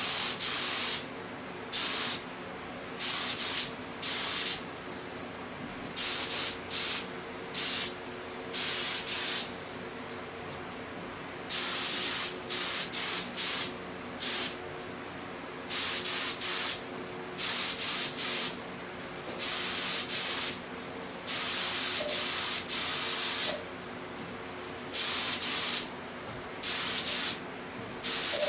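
Compressed-air gravity-feed paint spray gun hissing in repeated short bursts as the trigger is pulled and released on each pass, over a steady low hum.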